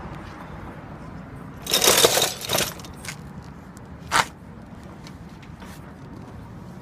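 A scraping rustle lasting about a second, about two seconds in, then a short scrape, then a single sharp click about four seconds in, over a low steady hum.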